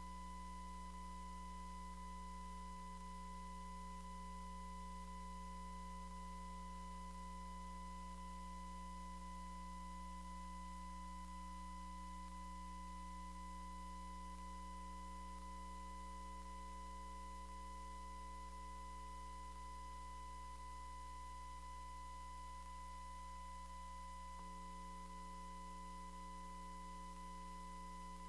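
Steady electrical mains hum with a faint, steady high tone over it, unchanging throughout.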